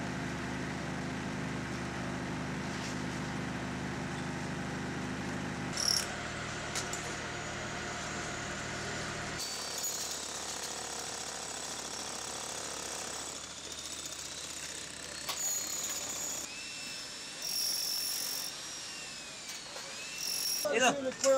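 Steady machinery hum with mechanical clatter from rescue work in collapsed-building rubble. The sound changes abruptly about nine seconds in, and is then quieter, with scattered clinks and faint voices.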